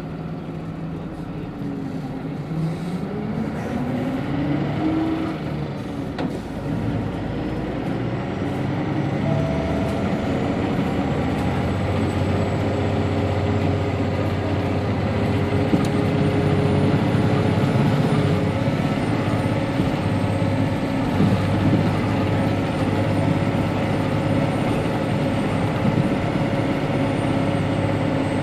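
Hino BJG-HU8JLFP Blue Ribbon City hybrid city bus heard from inside while driving between stops: the diesel engine note rises as the bus accelerates a few seconds in, then runs steadily with a thin high whine over it.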